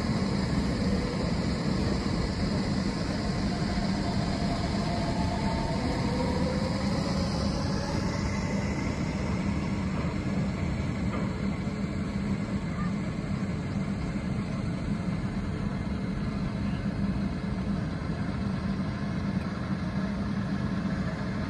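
Chiba Urban Monorail suspended electric train running along its elevated guideway and moving away, its motor whine falling in pitch a few seconds in. Under it a steady low hum holds throughout.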